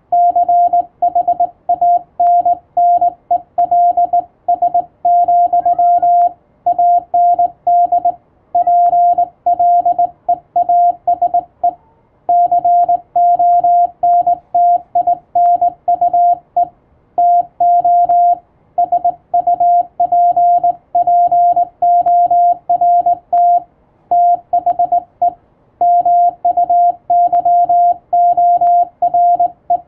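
Morse code (CW) tone at a single steady mid pitch, keyed on and off in quick dots and dashes, with short pauses between character groups.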